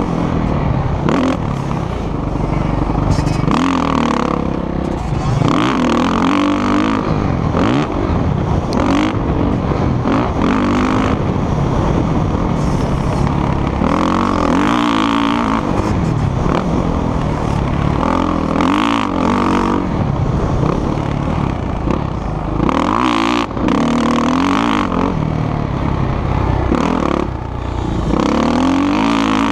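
Motocross dirt bike engine revving up hard and backing off over and over as it is ridden around the track, heard from the rider's helmet camera.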